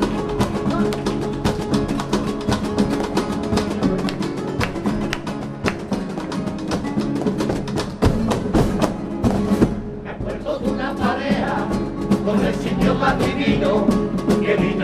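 A carnival comparsa's acoustic guitars strumming in a quick, driving rhythm. After a brief dip about ten seconds in, a group of voices comes in over the guitars.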